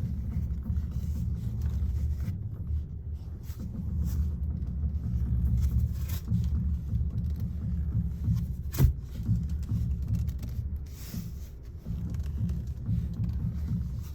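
A 2016 VW Jetta's steering gives a single sharp pop about nine seconds in, over a low steady rumble. This is the loud popping that comes when the steering wheel is turned.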